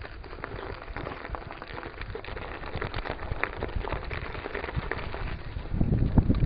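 Mountain bike tyres rolling over snow with a dense crackling. Wind rumbles on the microphone from near the end.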